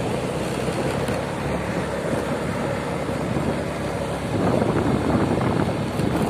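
Riding a motorcycle: the engine runs steadily under road noise and wind rushing over the microphone, growing a little louder about two-thirds of the way through.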